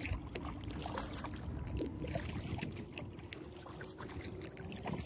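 Kayak paddling: water dripping and trickling off the paddle, with small splashes and light clicks and knocks against the boat.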